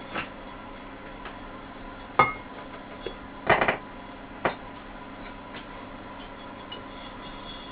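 Scattered sharp knocks and clinks of small hard objects being handled or set down, a handful in all: the loudest about two seconds in, then a quick cluster and one more knock a second later. A steady faint hum underneath.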